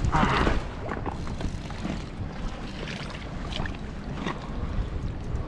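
Wind rumbling on the microphone beside moving water, with a louder rush of noise in the first half second and a few faint clicks after it.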